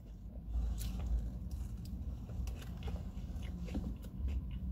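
A person chewing a mouthful of crispy chicken burger, with scattered small clicks from the mouth, over a low rumble.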